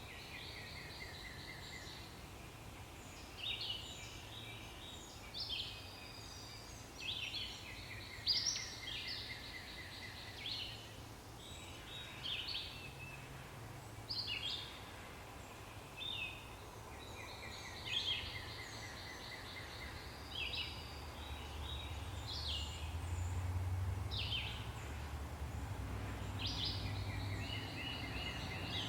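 Songbirds singing: repeated short phrases and fast trills, several overlapping, over a steady low rumble that grows louder near the end.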